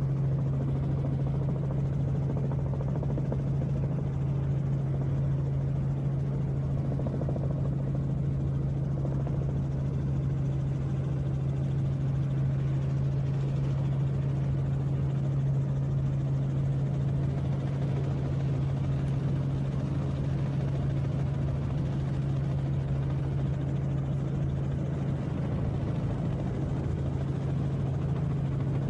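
Steady drone of an aircraft in flight, heard on board: one constant engine tone over even airflow noise throughout.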